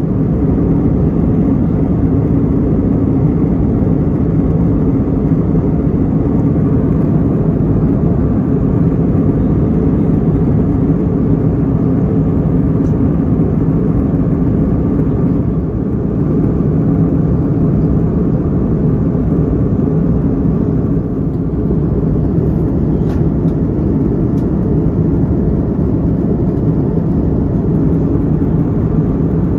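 Steady cabin noise of an Airbus A321LR in cruise flight, heard inside the cabin at a window seat: engine and airflow make a deep even rumble with a low steady hum.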